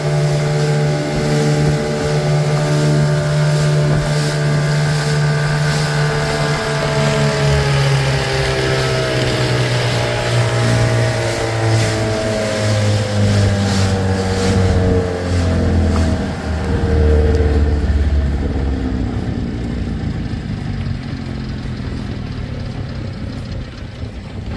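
Small boat's outboard motor running under way, then throttled back: its pitch falls over several seconds and the engine sound fades into wind and water noise about three-quarters of the way through.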